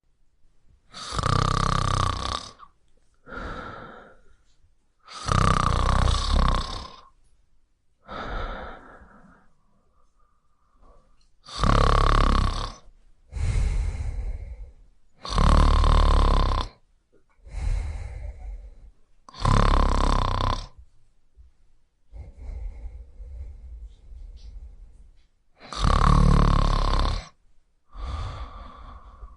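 Snoring in a slow, even rhythm: six long, loud snores, mostly about four seconds apart, most followed by a shorter, softer breath. Partway through, one breath comes as a quieter, rougher rasp instead of a full snore.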